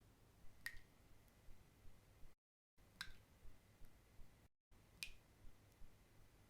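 Single water drops falling, about one every two seconds: three sharp plinks, each with a short ringing ping, and fainter ticks between them.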